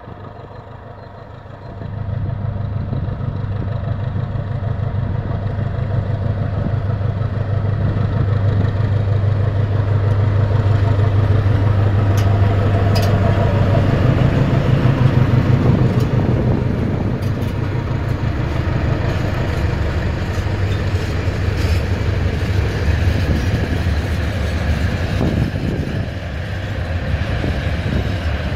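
SM42 diesel shunting locomotive's eight-cylinder diesel engine throttling up about two seconds in and running hard with a deep rumble as it starts a long freight train and passes close by. A few sharp clicks come through the middle, and later the engine eases off as the wagons roll past.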